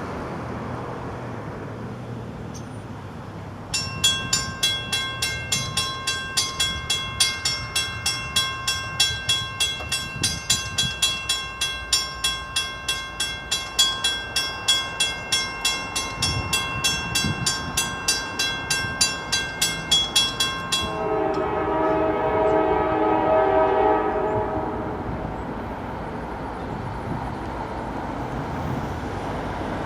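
Mechanical railroad crossing bell ringing at a steady pace of about three strikes a second, starting about four seconds in. Near the end it stops and a diesel locomotive's horn sounds for a few seconds, with a low rumble underneath.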